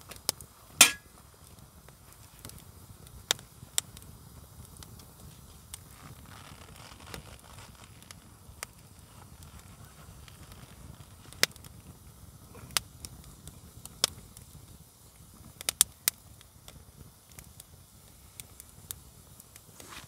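Wood campfire crackling, with sharp pops every second or few, the loudest about a second in and a quick cluster near the three-quarter mark, over a low steady noise from the burning fire.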